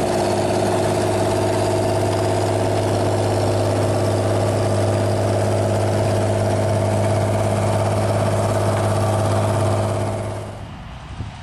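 Claas Dominator 106 combine harvester's diesel engine running steadily at constant speed with a deep hum, then cutting out about ten seconds in.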